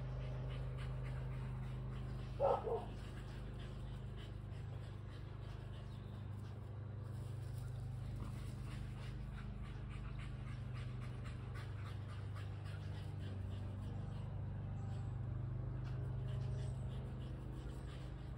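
A dog gives one short yelp, in two quick parts, about two and a half seconds in, over a steady low hum.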